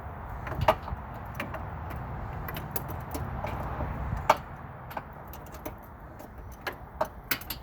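Hand tools clicking and clanking against metal in irregular, sharp knocks as wrenches work bolts on a car's front end, over a steady low rumble.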